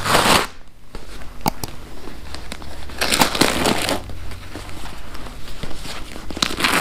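Vacuum-packed RV tire covers, stuck together, being pulled apart by hand: irregular crinkling and rustling, loudest about three seconds in, with a couple of sharp clicks early in the handling.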